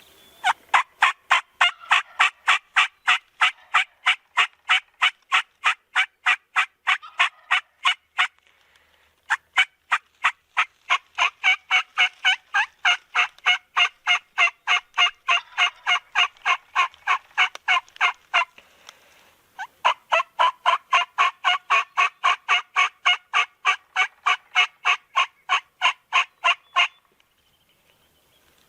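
Turkey yelping in three long, even series of rasping yelps, about three to four a second, broken by two short pauses.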